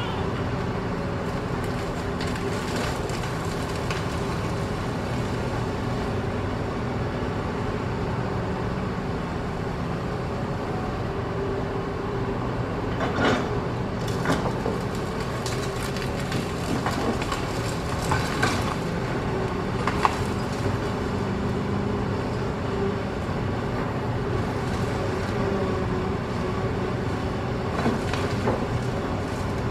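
Hitachi ZX210 excavator's diesel engine running steadily while it digs hard rock, with a few sharp clanks of the bucket on rock scattered through it, the loudest about twenty seconds in.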